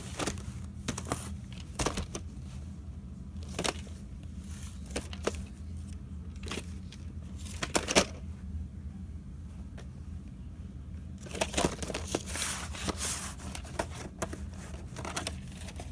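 VHS tapes and their plastic cases being handled and shifted on carpet: scattered clicks, knocks and rustles, busier near the end, over a steady low hum.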